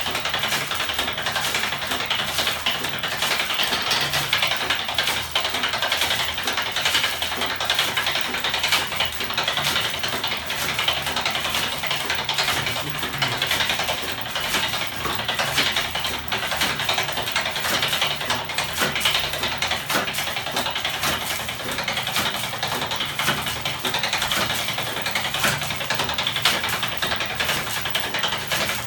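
A homemade electric-motor-driven flapping-wing (ornithopter) engine mechanism running at steady speed, its spinning crank and arms whirring with a dense, fast clatter of small clicks.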